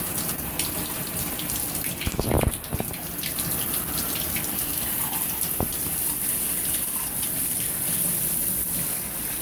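Water running steadily in a shower, with a few short knocks from handling, the loudest a little over two seconds in.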